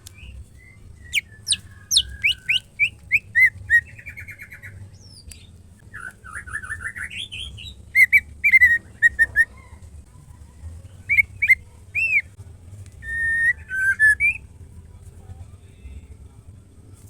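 White-rumped shama (murai batu) giving loud whistled calls in bursts: quick falling sweeps, a rising run of notes and short repeated phrases, with pauses between, over a steady low hum.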